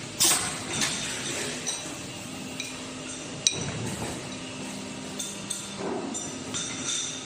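Metal clinks and knocks of steering rack parts being handled and assembled, with a sharp click about 3.5 s in, over a low steady hum.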